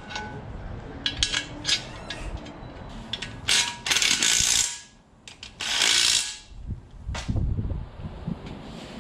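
A 3/8-inch cordless impact gun runs in two bursts of about a second each in the middle, lightly seating the bellhousing bolts. Metal clicks from bolts and tool handling come before them, and a few low knocks follow.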